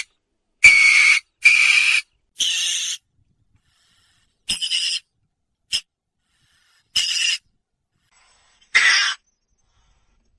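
Weasel screeching: a series of about seven short, harsh, high-pitched calls, each under a second long, with brief silences between, one near the middle very short.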